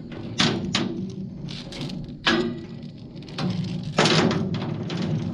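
Steel tie-down chain being handled and pulled loose, rattling and clanking against the steel trailer deck in several sharp clanks, the loudest about four seconds in.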